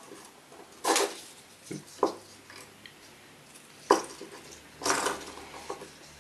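Pliers gripping and bending a lure's wire frame to a 90-degree angle: a handful of separate sharp metallic clicks and knocks, with a short cluster of them about five seconds in.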